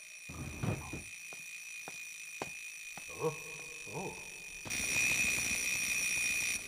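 An alarm clock ringing muffled inside a child's school backpack, a steady ringing that jumps much louder about two-thirds of the way in. Before that come a few light taps, like footsteps.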